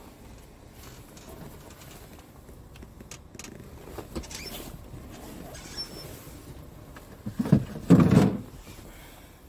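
Hard plastic storage bin being handled in its under-bunk compartment: a few light clicks and scrapes, then a louder clatter of plastic knocking and rattling near the end as the bin is lifted out.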